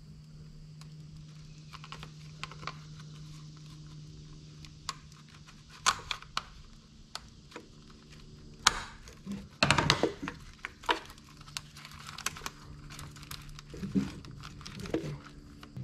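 Screwdriver clicking and scraping against the plastic release tabs of a wiring-harness connector as it is pried and worked loose from its mount, with scattered sharp clicks and a busier run of knocks and rattles around ten seconds in.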